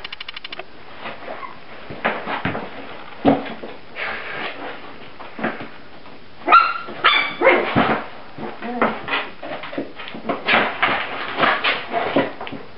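A mother dog and her five-week-old puppies in a dog bed: snuffles, scuffles and small dog noises, with two short high-pitched yelps a little past the middle.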